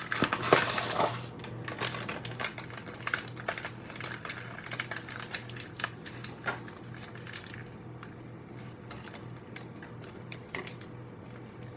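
Hands opening a package or container: a brief burst of rustling, then a run of irregular small clicks and taps that thins out about eight seconds in, over a steady low hum.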